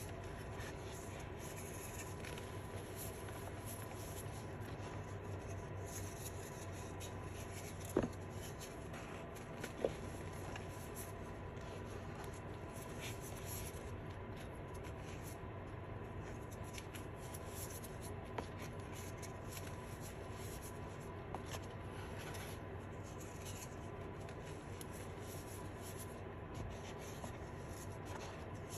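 Blue reformed chalk crumbling and rubbing under fingers: a steady soft scratchy crumbling, with two sharper snaps about eight and ten seconds in.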